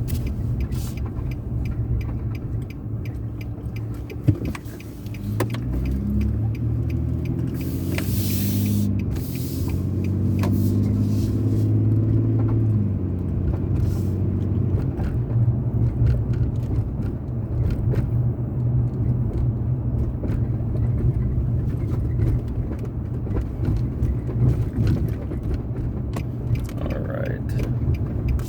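Car driving through town, heard from inside: a steady low rumble of engine and tyres on the road. From about five to thirteen seconds in, the engine note rises in steps as the car speeds up after a turn, and there is a single sharp click just before that.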